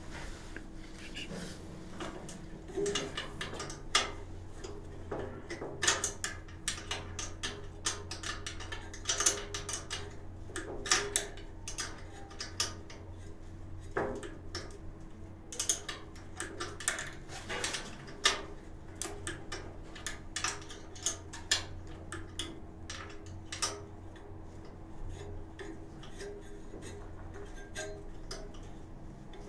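Irregular metallic clicks and taps as the brass water-valve assembly of a Yang gas water heater is handled and worked on, over a steady low hum.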